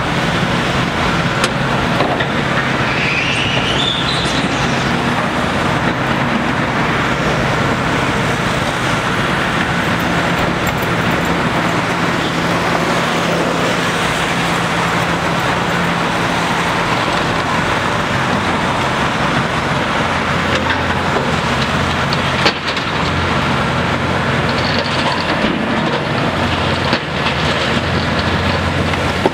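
Large Hitachi ZX870 LCH excavator's diesel engine running steadily under load as its hydraulics dig, lift and swing the bucket, with a brief rising whine about three seconds in.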